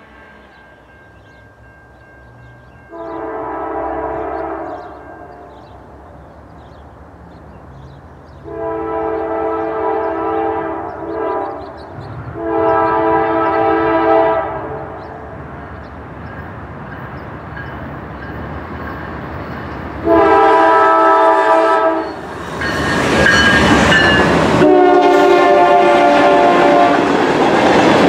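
Norfolk Southern freight locomotive's multi-note air horn sounding five blasts as the train approaches, the last held as the locomotives come by. From about 22 seconds in, a loud rush of the engines passing close, then freight cars clattering over the rails.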